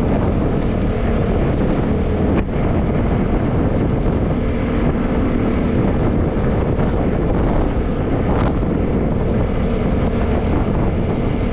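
Vespa S125 scooter's single-cylinder engine running at a steady cruise, heavily mixed with wind buffeting on the handlebar-mounted camera's microphone. A brief click about two seconds in.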